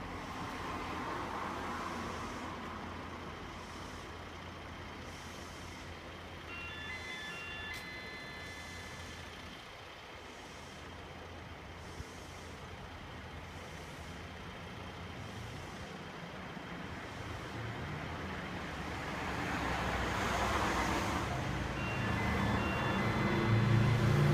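Diesel rail vehicle running during shunting, a steady low engine hum that grows louder and more pitched near the end as it works up. Short high beeps sound twice, about a third of the way in and near the end.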